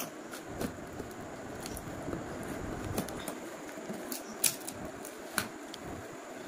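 Scissors slitting the packing tape along a cardboard parcel: a steady scraping of blade on tape and cardboard with scattered sharp clicks. Near the end the box flaps come open over crumpled paper packing.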